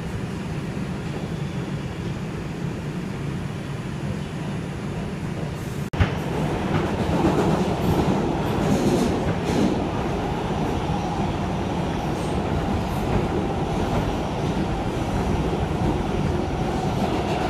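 Steady rumble of an R142 subway car running at speed, heard from inside the car, with the clatter of wheels on track. A sharp click comes about six seconds in, after which the noise grows louder.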